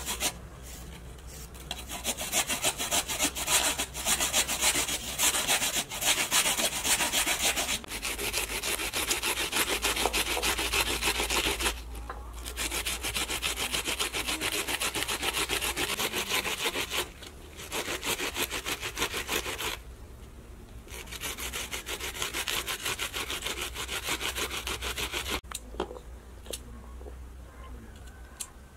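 A raw potato grated on a red plastic hand grater into a bowl: fast rasping strokes in long runs, broken by short pauses. The grating stops a few seconds before the end.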